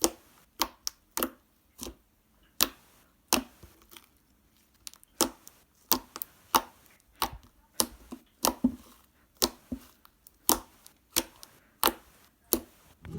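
Milky slime made of glue, shaving foam and contact-lens solution being squeezed and poked, making a string of sharp clicks and pops at an irregular pace, some in quick pairs, roughly one or two a second.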